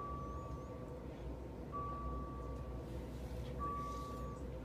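Electronic alarm beeping: a single steady tone about a second long, sounding three times at even two-second spacing, over a steady low hum.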